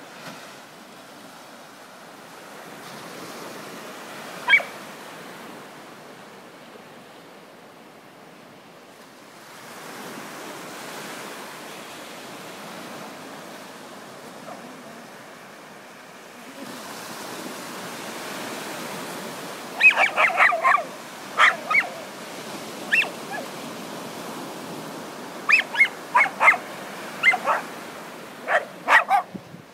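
A dog barking in short, sharp yips: one early on, then quick clusters about two-thirds of the way in and again near the end, over a steady rushing background noise.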